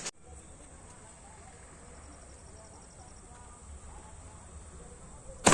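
Faint outdoor background with a thin insect-like chirping, then near the end a single sharp, loud bang of a firework going off.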